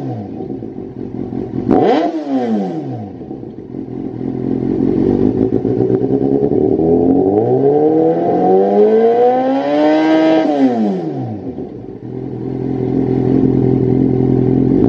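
Kawasaki Z800's inline-four engine through a Lextek SP8C carbon-fibre slip-on silencer, revved on the stationary bike. A quick blip about two seconds in drops straight back to idle. Then a slower rev builds to a peak about ten seconds in and falls away to steady running.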